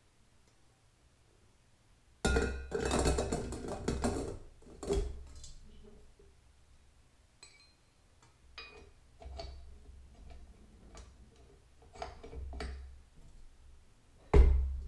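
Stainless steel bowl of a KitchenAid Artisan tilt-head stand mixer clinking and knocking against the metal clamping plate as it is twisted into place, then scattered lighter clicks as an attachment is handled and fitted. Near the end comes one sharp heavy clunk as the tilt head is lowered onto the base.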